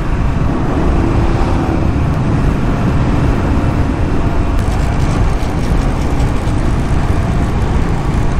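Royal Enfield Classic 350's single-cylinder engine running steadily at road speed, with wind rushing over the microphone.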